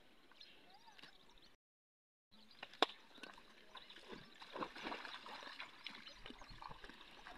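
Faint splashing and sloshing of cattle hooves and rubber boots in shallow muddy puddles, busiest in the second half, after a brief dead silence and a single sharp click.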